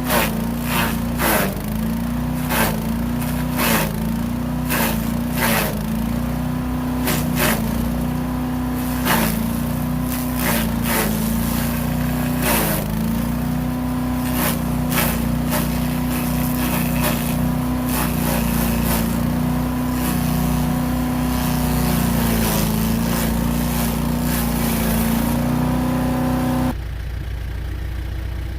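An engine running steadily, with many sharp, irregular cracks and knocks over it for the first half. Near the end the higher, noisier part cuts off suddenly, leaving a quieter engine sound.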